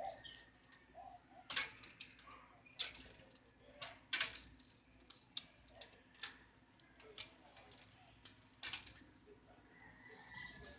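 Sharp scuffs and clicks at irregular intervals, the loudest about a second and a half, four seconds and near nine seconds in: a cat's paws and claws scrabbling during a chase, over a faint steady hum.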